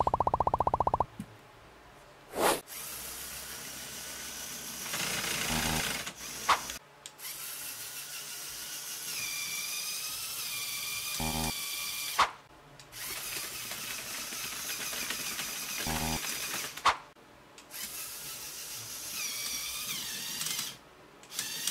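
A small electric Lego Technic motor whines and its plastic gear train whirs as a wheeled Lego vehicle drives up a 20° ramp under load. The whine wavers in pitch. It is broken a few times by sharp clicks and short gaps as one run gives way to the next.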